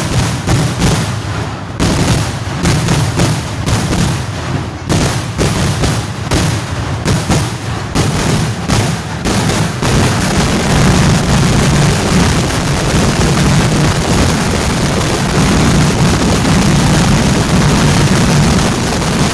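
Kerala temple-festival fireworks (vedikettu): a rapid string of loud firecracker bangs, several a second, for about ten seconds, after which the blasts run together into one continuous, unbroken din.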